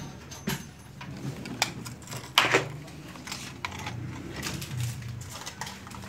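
Handling noise: scattered clicks and plastic rustling as small accessories in plastic wrap and a metal compact mirror are handled, the loudest click about two and a half seconds in.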